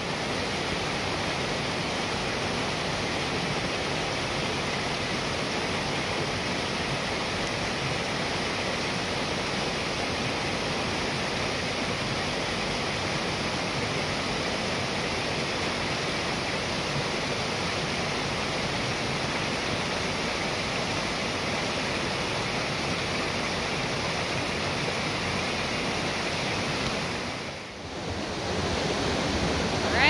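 Creek water rushing and splashing over boulders in steady whitewater below a waterfall, a dense, even roar. It dips briefly about two seconds before the end and then comes back.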